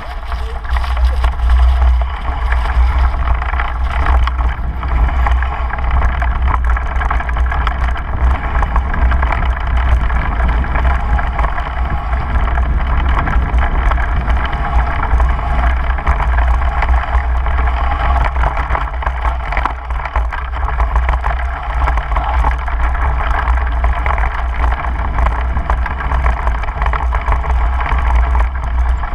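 Wind buffeting the microphone of a camera on a mountain bike coasting downhill, mixed with the rumble of knobby tyres over bumpy grass and the light rattle of the bike. Steady throughout, with small clicks from the bumps.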